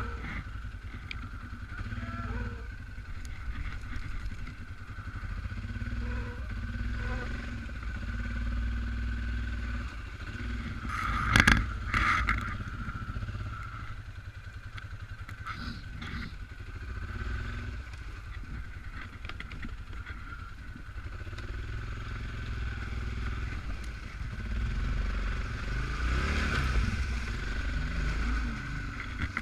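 Suzuki KingQuad 750 AXi ATV's single-cylinder engine running over rough ground, its low rumble rising and falling with the throttle. Two sharp knocks come close together about eleven seconds in.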